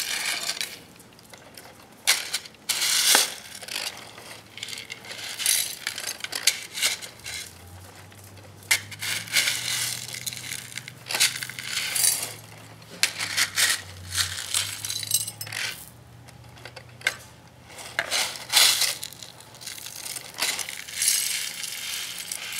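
Small gravel pebbles scraped up by a plastic toy excavator's bucket and poured into toy dump trucks: irregular bursts of crunching and rattling stones with sharp clicks, every second or two.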